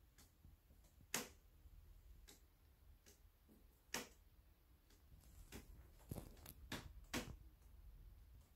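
Near-silent room tone with about eight faint, sharp clicks and taps at irregular intervals; the strongest come about a second in, about four seconds in and shortly before the end.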